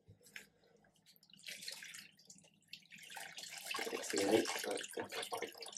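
Water dripping and splashing back into a tub as soaked wool skeins are lifted out and squeezed by hand. The skeins are being pre-soaked in a vinegar-and-water bath before dyeing. The splashing is louder from about three seconds in.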